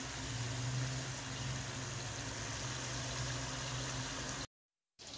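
Pakoras deep-frying in hot ghee in a two-handled metal pan: a steady sizzling and bubbling of the oil, with a low steady hum underneath. It cuts off suddenly near the end.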